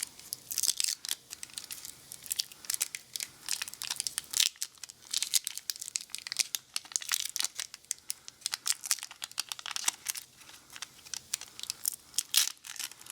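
Sticky tire repair plug strip being handled and threaded into the plug insertion tool: a steady, irregular crackling and peeling as the tacky material pulls off the fingers.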